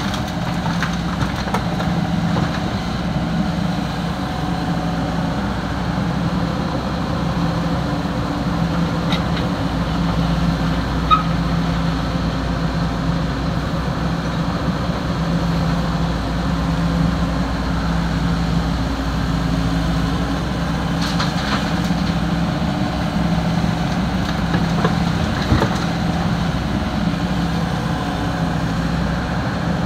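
Heavy diesel engine of an excavator running steadily at a low, slightly wavering hum, with a few faint knocks along the way.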